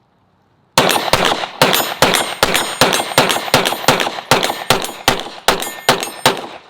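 Handgun fired in a long rapid string, about three shots a second, starting a little under a second in and stopping just before the end; each shot rings briefly.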